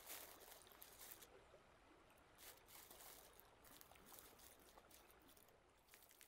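Faint, irregular rustling and crackling of dry straw bedding as a Eurasian otter moves about in its nest.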